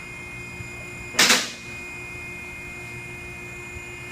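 A short, loud burst of hiss about a second in, over a steady faint high-pitched whine and low hum.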